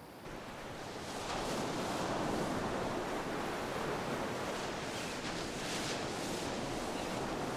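Ocean surf breaking and washing up a beach, a steady rush that fades in over the first couple of seconds and swells and eases with the waves.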